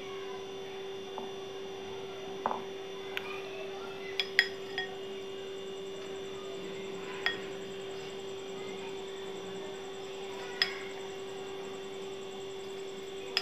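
A silicone spatula clinking against a glass bowl while scooping and spreading thick marinade: about eight short, ringing clinks spread out over the seconds, over a steady low hum.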